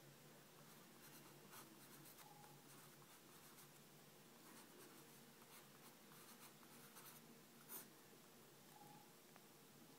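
Graphite pencil scratching faintly on sketchbook paper as words are handwritten in short strokes. One sharper stroke comes about three quarters of the way through.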